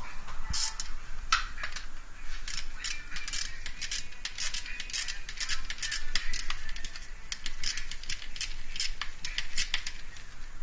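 Metal hand tools clinking and clattering in quick, irregular clicks, as when tools or sockets are handled and sorted.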